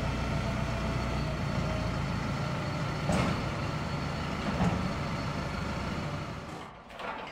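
Fendt tractor's diesel engine running steadily at low revs while the tractor backs up to the tanker's drawbar; the sound drops away near the end.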